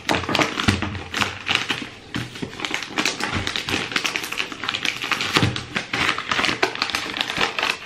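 Small brown paper gift bag being handled and opened by hand: paper crinkling and rustling, with a quick irregular run of crackles and taps.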